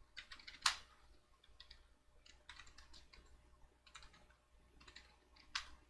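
Computer keyboard typing: faint, irregular keystrokes, with a louder click about 0.7 s in and another near the end.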